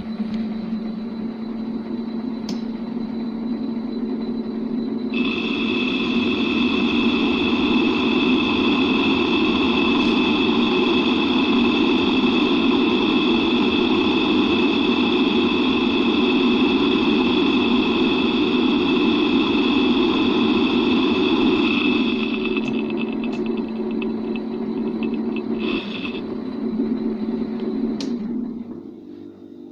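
16B16KA screw-cutting lathe running with a steady low hum. From about five seconds in to about twenty-two seconds a steady high-pitched whine joins it and the sound is louder, likely the tool taking a 6 mm cut in metal. The sound drops away near the end.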